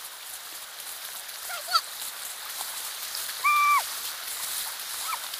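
Floodwater rushing across a road in a steady hiss. A few short, high-pitched cries sound over it, the loudest a held squeal about three and a half seconds in.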